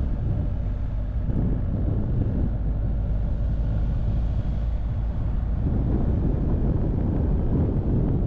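A BMW R1250GS boxer-twin motorcycle engine running under way, with wind noise on the microphone. The engine note swells a little about a second in and again past the middle.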